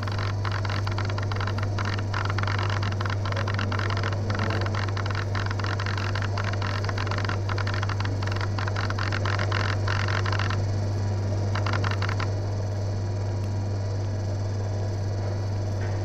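Morse undulator writing incoming Morse onto paper tape: a steady mechanical hum under rapid, irregular clicking from the recording mechanism. The clicking stops about twelve seconds in.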